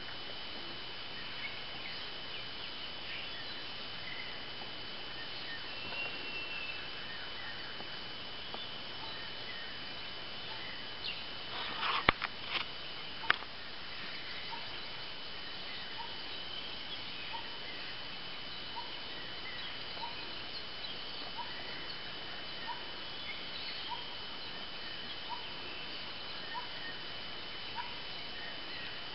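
Outdoor ambience with a steady high insect drone and, in the second half, a short faint call repeated about once a second. A brief cluster of sharp clicks and cracks about twelve to thirteen seconds in is the loudest sound.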